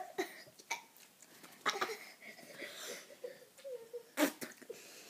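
A girl coughing, gasping and blowing out a mouthful of dry seasoning powder, in short breathy bursts with a muffled hum between them; the loudest burst comes about four seconds in.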